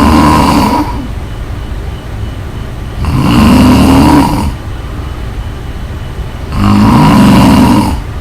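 Loud snoring: three long snores about three and a half seconds apart, each lasting a second or more.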